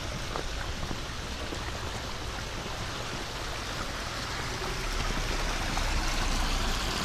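Water running and splashing steadily down a backyard pond's stream and waterfall, a little louder from about five seconds in.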